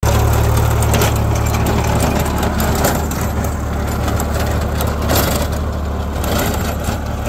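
Swaraj 735 FE tractor's three-cylinder diesel engine running steadily under load as it drives a Shaktiman rotavator through the soil, a constant low drone with the rotavator's churning noise over it and a couple of brief knocks.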